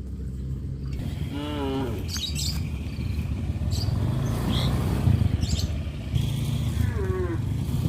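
A motor running steadily with a low hum, and birds chirping now and then over it.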